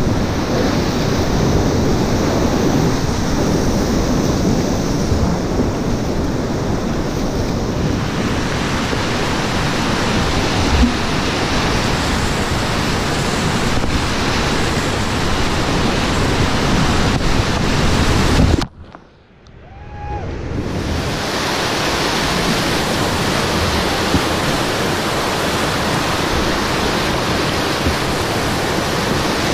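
Steady rushing roar of Watauga River whitewater rapids, heard from a small inflatable boat with wind noise on the microphone. About two-thirds of the way through, the sound drops away sharply and goes muffled for about two seconds, then comes back.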